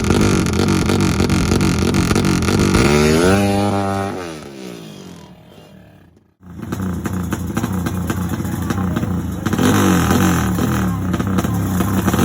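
A 250cc motorcycle engine running loud through a Herex aftermarket racing exhaust. About three seconds in, the note falls in pitch and fades away, then cuts off abruptly. The engine is heard running again straight after, growing louder near the end.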